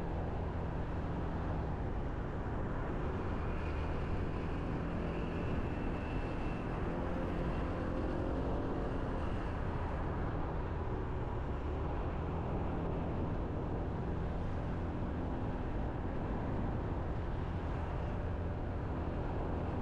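Motorbike engine running steadily while riding, with road noise and wind on the microphone.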